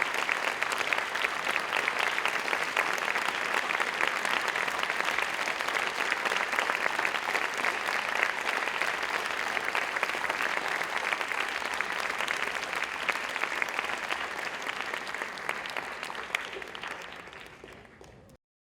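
Audience applauding, a dense steady clatter of many hands clapping that thins out and fades from about two seconds before the end, then cuts off abruptly.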